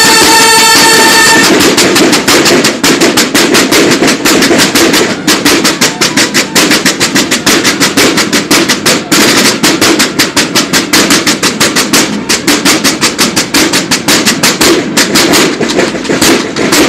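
Field drums of a banda de guerra (drum and bugle corps) playing a rapid drum cadence, after a held bugle chord that cuts off about a second and a half in.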